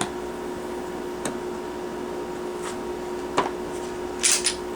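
A few isolated sharp clicks, then a short run of bright metallic clicks near the end, as a compact Glock pistol is handled during a safety check. A steady low hum runs underneath.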